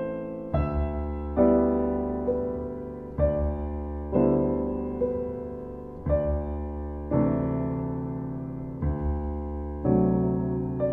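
Slow, gentle piano music: soft chords and single notes struck about once a second, each left to ring and fade.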